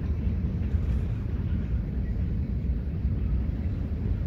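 Steady low rumble of a long freight train of covered hoppers and boxcars rolling along the yard track.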